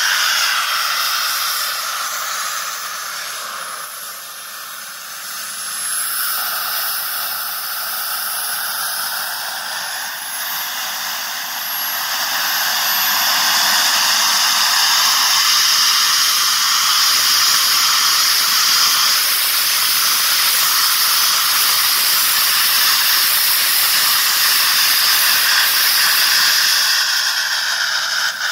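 Small kerosene-fuelled RC model jet turbine running in its housing, a loud steady rushing hiss with a faint high-pitched whine. It eases off a few seconds in, then spools back up in two steps and holds steady at a higher level.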